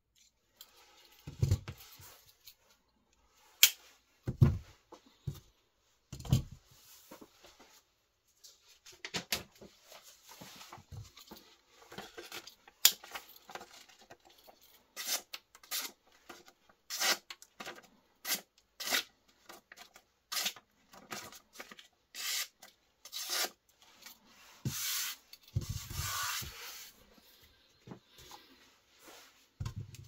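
Victorinox Ranger 78 M Grip multitool pocket knife handled: a string of sharp clicks and rubbing sounds, with a few dull knocks near the start and near the end. In the middle the clicks come about once a second, and near the end come two longer rasps.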